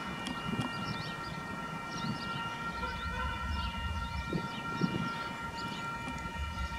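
KiwiRail DL-class diesel locomotive approaching slowly with its freight train, the engine rumbling under a steady high whine. Birds chirp over it.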